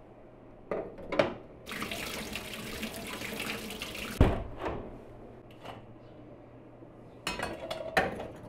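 Kitchen tap running into a steel sink for a couple of seconds while a small part is scrubbed under it, cut off by a sharp knock. A few metal clanks come before it from a gas-stove grate being lifted, and clinks near the end as kettles are set down on the stove's grate.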